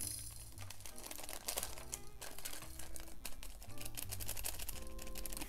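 Soft background music with held chords, over the crinkling of small plastic zip bags and the quick clicking of diamond-painting drills tipped into a plastic tray.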